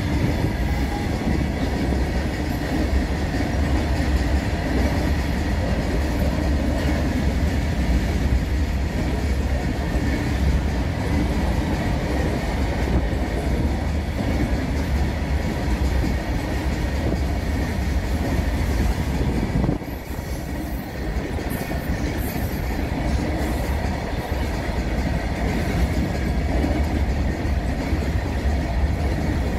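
Freight train of BOXN-type open steel wagons rolling past close by: a steady heavy rumble of wheels on rail, dipping briefly about twenty seconds in.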